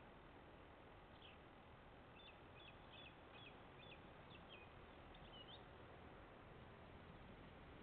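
A small bird chirping faintly: a quick run of about nine short, high chirps that stops about two-thirds of the way through, over a steady low hiss.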